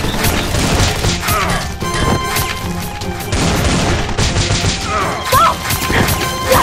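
Gunshot sound effects, a scatter of sharp shots, laid over loud background action music.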